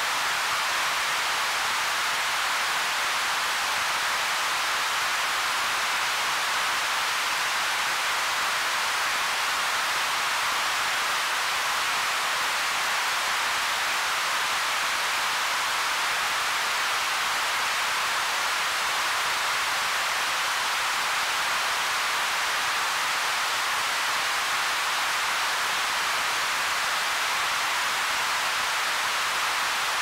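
White noise from a Roland SH-1000 analog synthesizer's noise generator: a steady, unchanging hiss, strongest in the upper middle with little bass.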